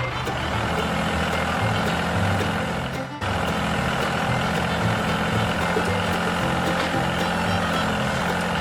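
Vehicle engine running steadily over background music, dropping out for a moment about three seconds in.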